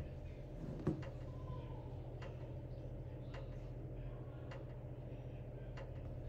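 Casablanca Victorian ceiling fan with an XLP motor running steadily on speed 4, giving a low, even motor hum. Light ticks come about once a second.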